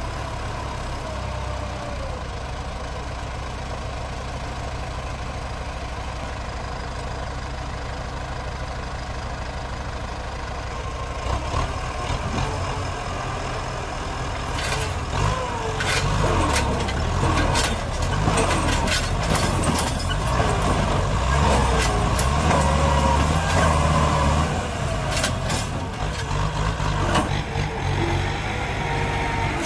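Kubota farm tractor's diesel engine idling steadily, then from about halfway through running harder and uneven as the tractor drags on a chain tied to a tree, with scattered sharp knocks and clanks.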